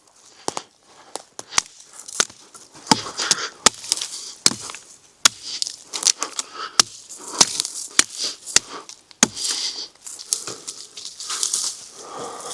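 Dry twigs and dead branches being snapped and broken for firewood: irregular sharp cracks, a few close together, with crunching and rustling of the dry wood between them.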